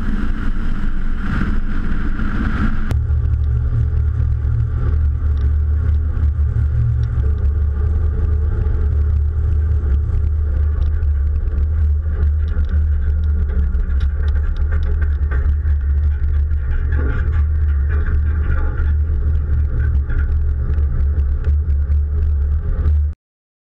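1982 GMC 3500 crew cab 4x4 pickup driving at road speed, heard from a camera mounted on the truck: wind rush over the microphone at first, then, about three seconds in, a deep steady rumble of the engine and road noise. The sound cuts off suddenly near the end.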